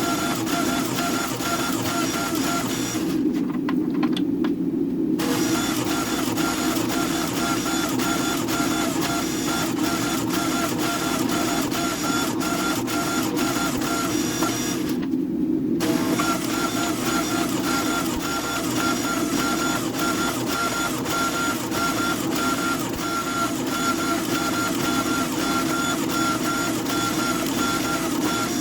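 A workshop machine running steadily, with a constant hum and dense fine ticking. Its higher sound drops out twice, for a second or two each time, while the hum keeps going.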